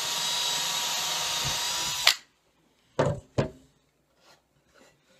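Cordless drill running steadily with a high whine as it bores straight down into a pine strip, stopping abruptly about two seconds in. About a second later come two knocks close together as the drill is set down on the metal saw table.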